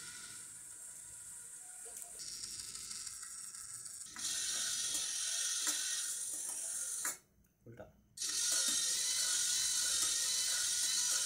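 Small geared DC motors and plastic rack-and-pinion gears of a homemade cooking machine running, a clicking gear rattle over a steady hiss. It gets louder about four seconds in and cuts out for about a second past the middle.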